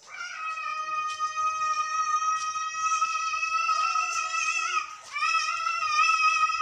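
A loud, steady held note with strong overtones, sounding for about five seconds, breaking off briefly, then sounding again at the same pitch for about two seconds before cutting off sharply.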